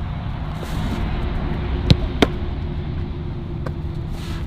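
Two sharp thuds of a football about a third of a second apart, near the middle, over a steady low outdoor rumble.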